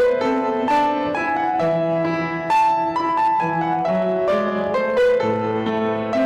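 Piano playing a melody over chords, with notes struck one after another at a gentle pace.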